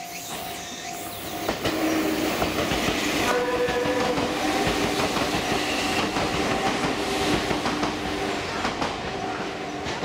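Enoshima Electric Railway (Enoden) electric train passing over a level crossing, its wheels clattering rapidly over the rail joints, with the crossing's warning bell ringing. A brief higher pitched tone sounds about three seconds in.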